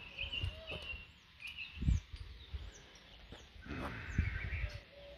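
Small songbirds chirping and singing, short repeated high calls. A low thump about two seconds in, with some low rumble like handling or wind on the microphone.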